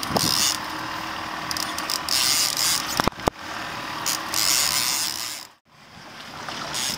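Fishing reel cranked in short spells while a hooked fish is played, a mechanical whirring ratchet over steady background noise. There are two sharp clicks about three seconds in, and the sound cuts out briefly near the end.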